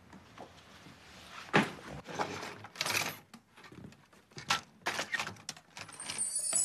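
Rustling and short knocks as a book is pulled out of a backpack and set down on a wooden table; the loudest knock comes about one and a half seconds in.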